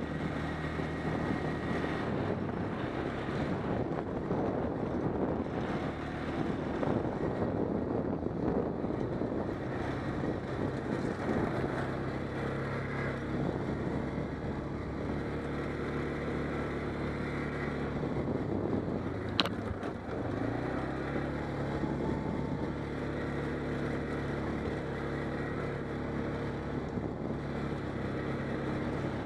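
ATV engine running steadily under way, with a single sharp click about two-thirds of the way through.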